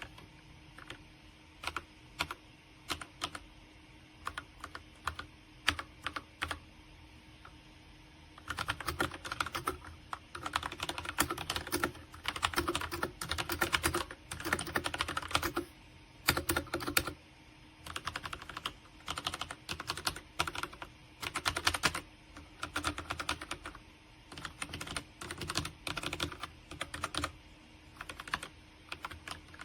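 Typing on a MageGee 75% mechanical keyboard with red linear switches: a few separate key presses at first, then bursts of fast typing from about eight seconds in, broken by short pauses.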